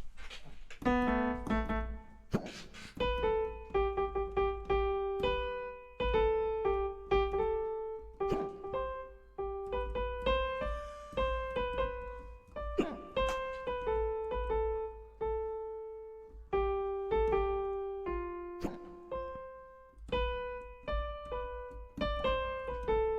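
Piano-voiced keyboard picking out a melody one note at a time, each note struck and left to decay, with short pauses between phrases.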